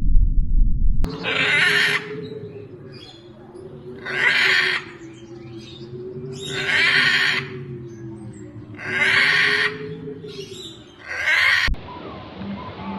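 An animal giving five hoarse, breathy calls, each under a second long and spaced about two and a half seconds apart.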